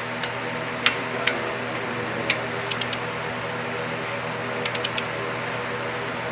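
Sharp metal clicks and clinks of parts and tools being handled during an engine rebuild, a dozen or so scattered through, over the steady hum of a shop fan.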